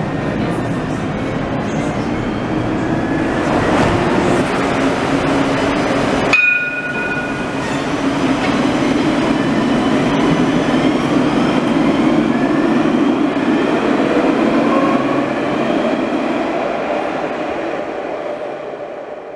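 Alstom Citadis tram running, first as a steady rumble heard inside the moving car. About six seconds in, the sound switches to the tram in an underground station: a rumble with the gliding whine of its motors, a brief two-note tone at the switch, fading away near the end.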